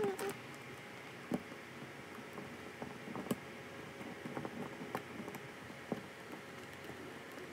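Scattered light clicks and taps of plastic and metal parts being handled as a softbox light head is fitted onto the top of a tripod light stand.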